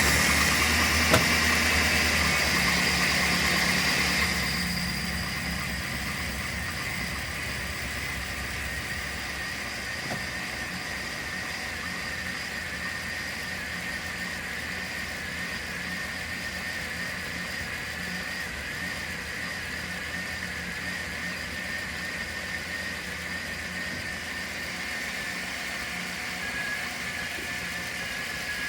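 Chevy 5.7-litre V8 van engine idling just after starting, running faster for the first few seconds and then settling to a steady lower idle about four seconds in. It is idling with the distributor loosened while the ignition timing is set by ear.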